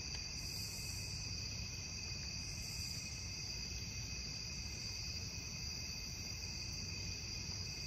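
Steady night chorus of insects: several high-pitched trills overlapping without a break, over a low rumble.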